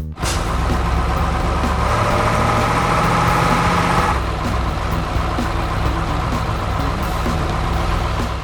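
Heavy vehicle engine sound effect running steadily with a low rumble, a higher whirring layer joining in for a couple of seconds in the middle.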